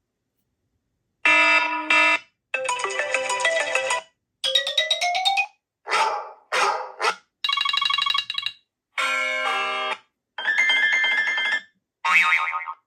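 A quick run of about nine short iOS 17 ringtone or tone previews played on an iPhone 14 Pro Max speaker, each a different bright electronic chime or melody lasting about a second before the next one starts. The first begins about a second in.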